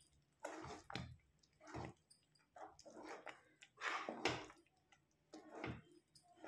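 Metal spoon stirring and pressing thick, stiff cornmeal (maize-flour) dough in a steel pot, giving irregular wet squelching strokes.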